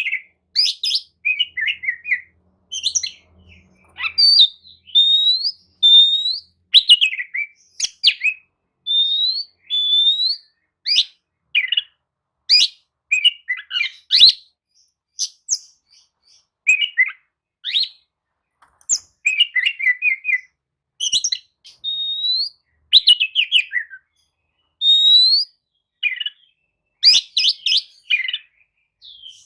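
Oriental magpie-robin (kacer) singing a long run of varied short phrases, with clear up-slurred whistles mixed with fast chattering, downward-sweeping notes and short pauses between phrases.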